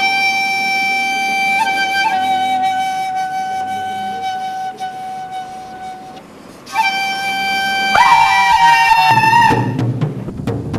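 Flute music: long, held notes with slight bends between them, breaking off about six seconds in. The flute comes back, a second higher line joins it near eight seconds, and clattering percussion takes over near the end.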